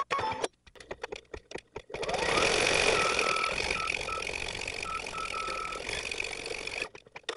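Baby Lock Intuition embroidery machine stitching out a design, sped up threefold, so the needle strikes come as rapid clattering. From about two seconds in it turns into a denser, steadier mechanical run carrying a few short high beeps, then goes back to choppy stitching near the end.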